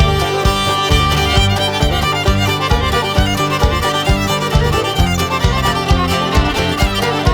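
Instrumental break of a country-folk song: fiddle leads over a band with a steady beat.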